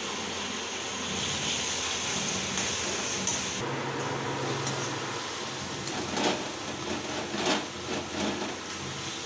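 Chopped onion and tomato sizzling in oil in a metal kadai while a steel slotted spatula stirs and scrapes against the pan. The scraping strokes come more often in the second half.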